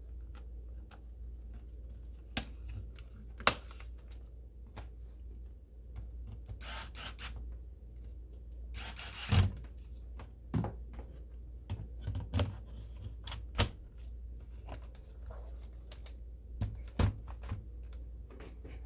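Scattered clicks and knocks of hard plastic laptop parts being handled, with two short rubbing scrapes near the middle, over a steady low hum.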